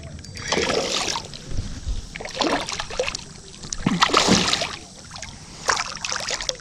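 Water splashing in four short bursts as a hooked largemouth bass thrashes at the surface beside a kayak during the fight.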